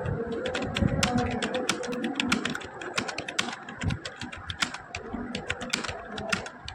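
Fast touch-typing on a laptop keyboard: a quick, irregular run of key clicks, several a second.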